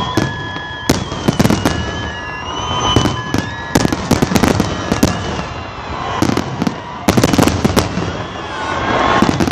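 City fireworks display going off: a rapid series of sharp bangs and crackles, coming in clusters. High steady tones sound over the first few seconds.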